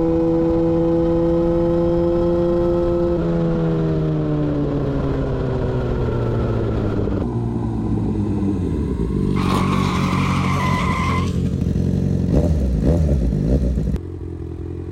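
Yamaha FZ6 inline-four engine through a GPR aftermarket exhaust, running at steady high revs for a few seconds, then the revs falling away as the bike slows. A brief high-pitched squeal comes about ten seconds in, and the engine note drops quieter near the end.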